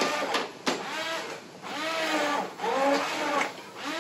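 Hand-held immersion blender puréeing a pot of potato-thickened soup, its motor whine rising and falling in pitch as the blades meet the chunks. A couple of sharp clicks come about half a second in.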